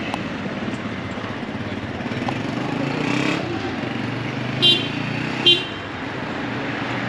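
Road traffic running past, with two short toots of a vehicle horn a little under a second apart, about two-thirds of the way through.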